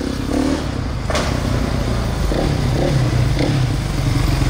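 Kawasaki KX450 dirt bike's single-cylinder four-stroke engine running at low revs with an even, rapid putter, revving up slightly near the end.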